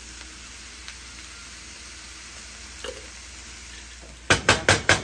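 Mixed vegetables sizzling steadily in a nonstick frying pan, then, near the end, four quick loud scrapes of a wooden spatula stirring them against the pan.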